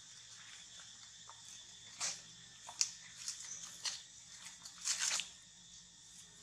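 Dry leaves crackling and rustling in a few short bursts as macaques shift and scramble about on the leaf litter.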